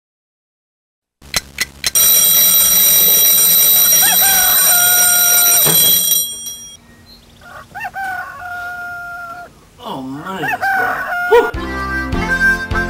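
A twin-bell mechanical alarm clock ringing loudly, stopped short about six seconds in, while a rooster crows over it. The rooster crows twice more after the ringing stops, and music starts near the end.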